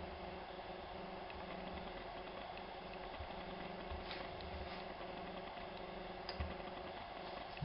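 Faint scattered clicks and taps over a steady low hum, with a sharper tick a little after six seconds in.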